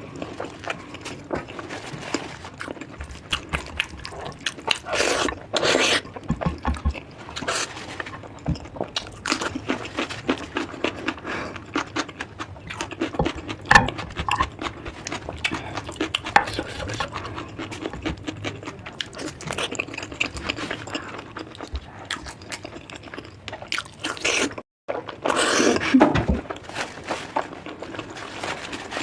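Close-miked eating sounds: a person chewing, smacking and biting into mutton and chicken curry with rice, in many short irregular clicks and wet bursts.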